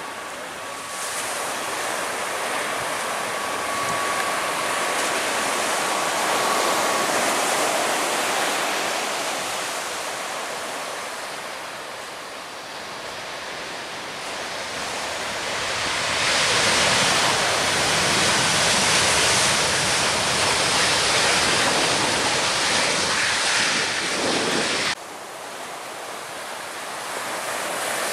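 Jet airliner noise, a rushing roar under surf and wind on the microphone, with a thin steady engine whine in the first several seconds as a narrow-body twin-jet comes in on approach. The roar grows louder about halfway through, then drops suddenly near the end.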